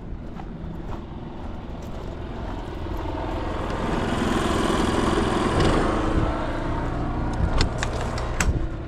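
A vehicle engine running steadily as it drives slowly, with rushing tyre noise that builds toward the middle and then eases off.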